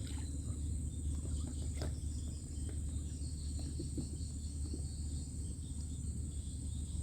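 Steady high-pitched chirring of insects, a second pitch joining about three seconds in, over a low steady rumble.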